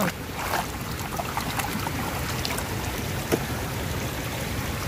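Shallow stream water running steadily, with a hand splashing in it and a few light clicks and knocks.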